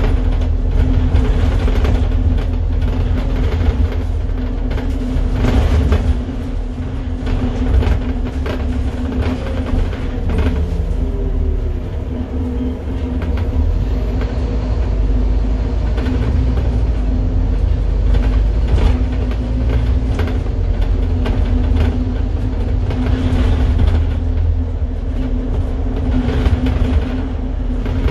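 Scania N230UD Enviro 400 double-decker bus driving, heard from inside the passenger saloon: a steady low rumble from its freshly rebuilt Scania five-cylinder diesel with a constant hum, and frequent rattles and clicks from the body and fittings.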